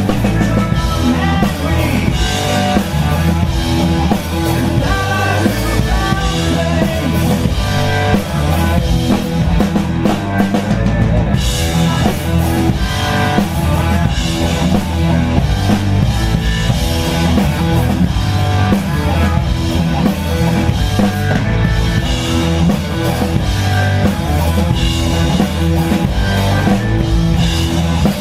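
Live blues-rock band playing: drum kit, bass and electric guitar at a steady beat.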